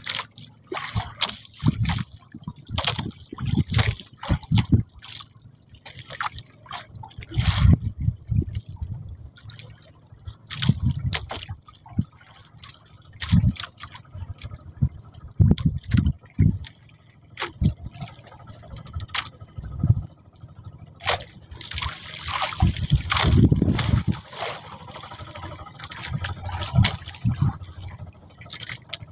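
Water slapping, trickling and dripping around a small fishing boat, with irregular knocks and low thumps.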